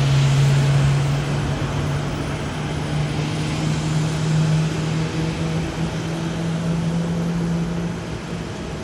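Jet airliner passing close by, loudest in the first second and slowly dying away, with a low engine drone that fades out about eight seconds in.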